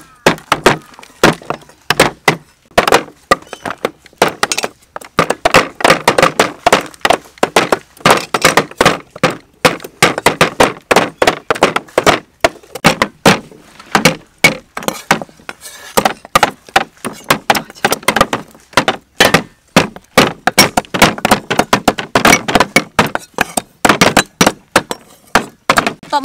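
Cleavers chopping on thick round wooden chopping blocks in quick, uneven strikes, several knives at once, cracking through raw chicken feet and later cutting a root and lemongrass stalks.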